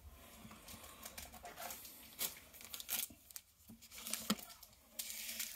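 Faint crinkling of foil Pokémon booster pack wrappers as the packs are handled and laid on the table, with a few sharper crackles.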